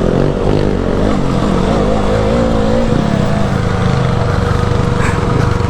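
Motorcycle engine running under load on a steep dirt climb, its pitch wavering slightly as the throttle is worked.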